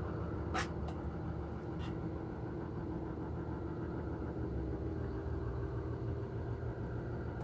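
An engine idling steadily with an even low hum, with a few faint clicks in the first two seconds.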